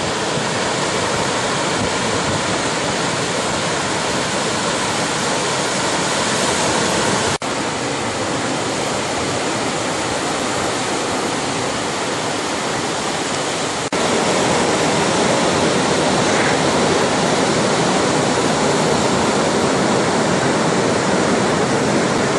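Ocean surf breaking and washing toward the beach: a steady, loud rush of noise, broken twice by a momentary drop.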